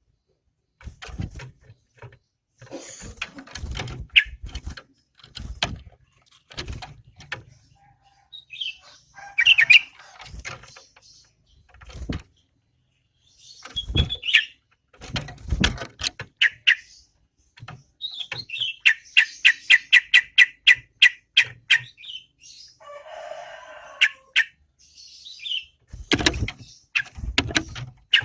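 Yellow-vented bulbul (trucukan) calling in short chirps, then a fast chattering run of repeated notes, about six a second, some way past the middle, with many sharp clicks and low knocks in between.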